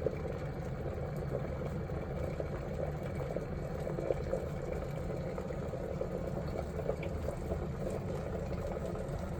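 Water at a rolling boil in an Ovente 1.5 L glass electric kettle, a steady bubbling rumble with fine irregular crackle.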